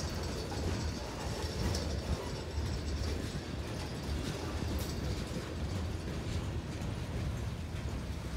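Freight train of covered hopper and tank cars rolling through a grade crossing: a steady low rumble of steel wheels on rail, with a few light clanks and knocks here and there.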